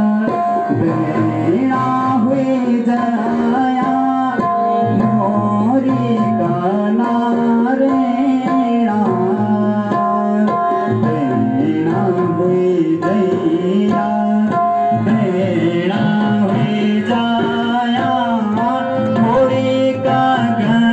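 Harmonium and tabla playing the accompaniment of a Garhwali mangal geet (wedding song): held harmonium notes over a steady tabla rhythm.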